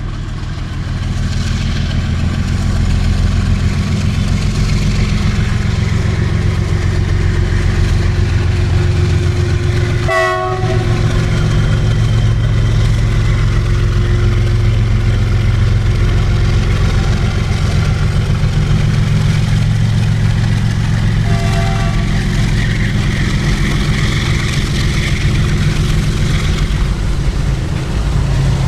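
WDG4G diesel locomotive's engine humming with a steady, loud, low drone. Two brief higher tones cut in, about ten and twenty-one seconds in.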